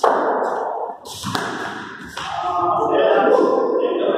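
Cricket bat striking a ball with a sharp knock at the start, and another knock about a second later. Then several voices shout and call out, echoing in a hard-walled hall.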